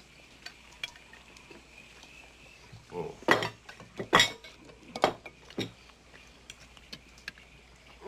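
Cutlery clinking and tapping against dinner plates, with faint scattered ticks at first and a handful of louder, sharper clinks in the middle.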